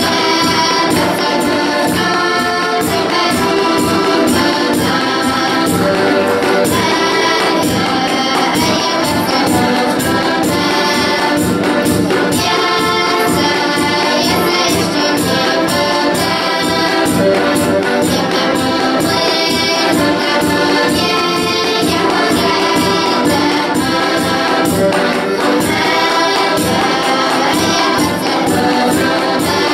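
Folk tune played by a group of accordions with children singing along, over a steady jingling beat from a folk percussion stick.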